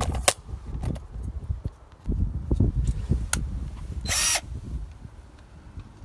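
Cordless drill with a screwdriver bit working the screw of a doorbell button, running in short spurts with clicks and knocks. A brief high whir about four seconds in.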